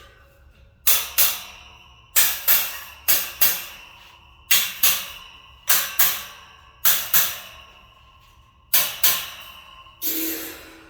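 Metal wire shelving struck in quick pairs of sharp knocks, seven pairs in all, each knock leaving a metallic ring: a shelf being tapped down to seat it on the rack's posts. A longer rattling clatter follows near the end.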